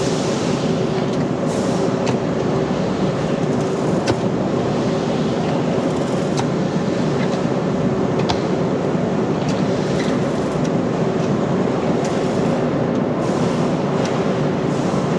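Steady machinery running, with a constant hum of several tones and scattered sharp clicks.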